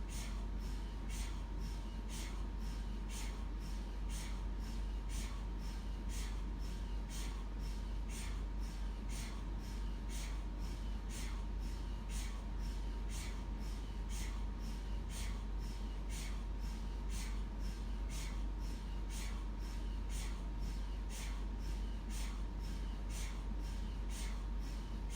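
MRI scanner knocking in an even, unbroken rhythm, a little over two knocks a second, over a steady low hum and a faint steady tone.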